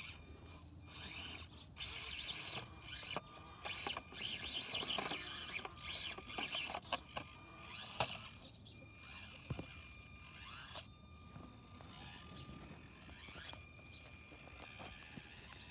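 Axial SCX24 Deadbolt 1/24-scale RC crawler straining up a steep section, its small electric motor and gear drivetrain whining in short, irregular bursts of throttle, with scraping and scrabbling of its tires.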